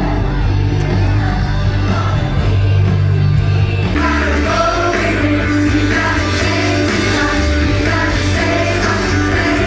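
Loud music playing, with a steady bass line; a singing voice comes in about four seconds in.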